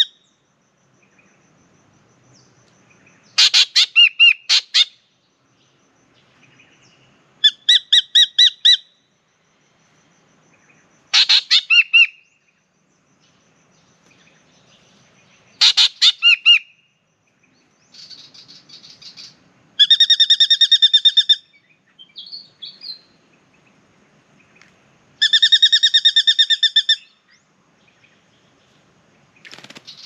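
Spangled drongo calling: six loud bursts, each a rapid string of repeated harsh notes lasting one to two seconds, spaced a few seconds apart, with two fainter calls in between.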